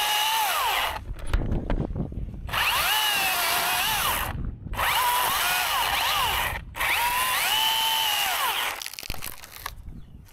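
Battery-powered top-handle chainsaw cutting through dead cherry wood in four bursts. Its motor whine dips in pitch as the chain bites in and climbs back as it eases off, and it stops about a second and a half before the end.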